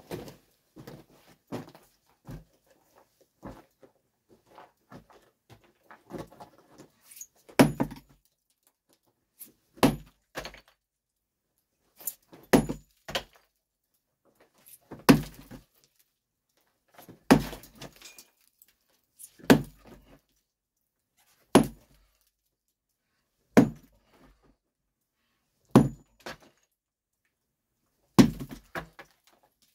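Heavy 20 lb sledgehammer striking rock: about ten hard blows, one roughly every two seconds, some followed by a smaller clink. Lighter knocks and scuffing come first as the hammer is picked up.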